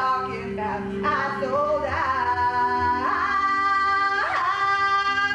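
A woman belting a song into a microphone over instrumental accompaniment, finishing on long held high notes.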